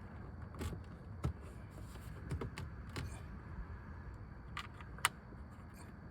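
Scattered light clicks and rattles of hands working plastic dashboard trim and its fasteners back into place, a few sharp clicks standing out over a low background hum.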